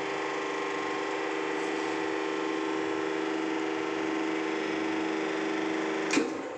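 Hydraulic hose crimping machine running through a crimp cycle, its electric motor and pump giving a steady hum. A sharp click near the end as the cycle finishes, then the hum falls away.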